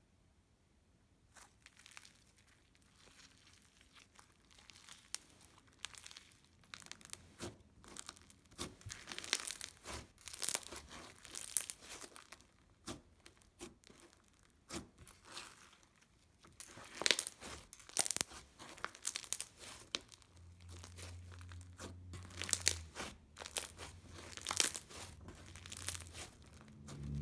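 Crunchy microfilm slime being squeezed and stretched, giving dense, irregular crackling and popping that grows louder after the first couple of seconds.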